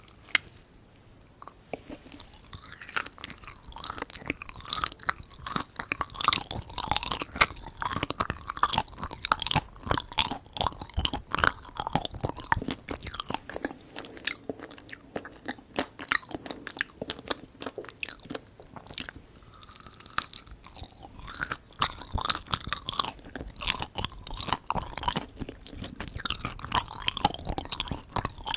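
Close-miked ASMR chewing and biting of Korean sweets, a dense run of small wet clicks and smacks with some crunch. It starts about two seconds in.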